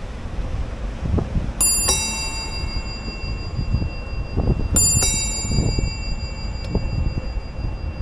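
Bicycle bell rung twice, each time a quick double ding that rings on and slowly fades, the two rings about three seconds apart, over a steady low rumble.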